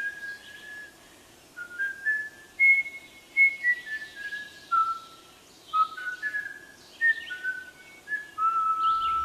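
Whistling of a slow, simple melody: a string of single held notes stepping up and down, the last one held longest near the end.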